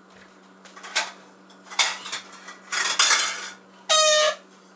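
Dishes clinking as a plate is fetched from a stack: a couple of sharp knocks, a clatter about three seconds in, then a loud ringing scrape lasting under half a second near the end.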